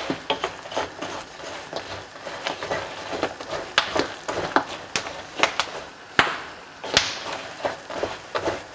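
Wooden spatula stirring whole almonds coated in caramelizing sugar around a non-stick pan, with irregular scrapes and clicks as the nuts tumble against the pan.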